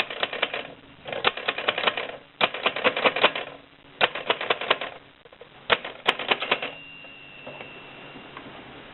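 Mignon 3 index typewriter being typed on: five quick bursts of rapid clacking strikes, each under a second long, with short pauses between, before it goes quieter near the end with a faint steady high tone.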